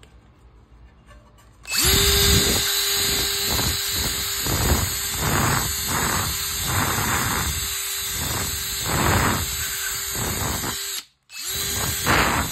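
Cordless drill spinning a wire brush against a rusty steel pan: a steady motor whine under repeated scraping rasps as the bristles scour rust off the metal. It starts suddenly about two seconds in, cuts out for a moment near the end, and starts again.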